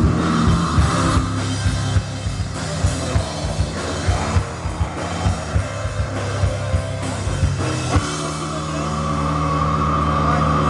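Live rock band playing through a PA: drum kit beating steadily under electric guitar and bass. About eight seconds in the drumming stops and held guitar and bass notes ring on.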